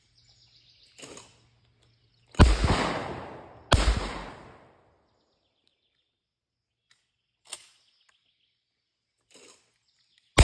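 Two shotgun shots just over a second apart, each echoing away over about a second, with a third shot right at the end.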